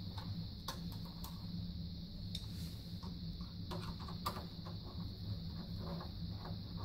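Faint clicks and scrapes of a screwdriver and fingers on the terminal screws of an electric water heater thermostat, as the wires are fastened back on. A steady low hum runs underneath.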